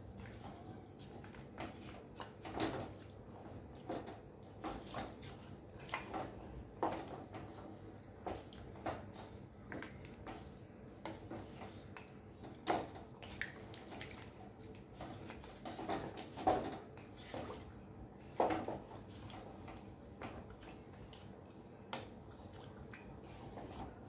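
Wooden spatula stirring a pot of stew, with irregular knocks and scrapes against the pot amid the wet sound of the stew moving.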